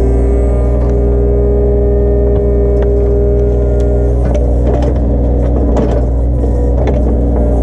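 Mini excavator's diesel engine running steadily under work, with a steady hydraulic whine for about the first four seconds, then scattered knocks and clanks.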